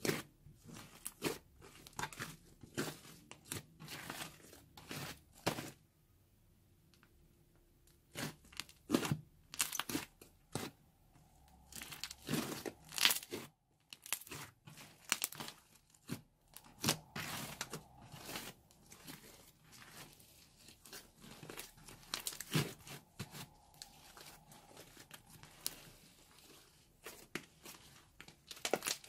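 Pink fluffy slime squished, kneaded and stretched by hand against a wooden table, giving irregular crackling and popping, with a quieter stretch about six seconds in.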